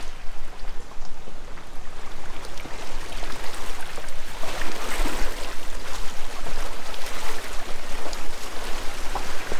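A Land Rover LR2's tyres rolling through a shallow water crossing on a dirt track, water splashing and sloshing around the front wheel, heaviest about halfway through, over a steady low hum.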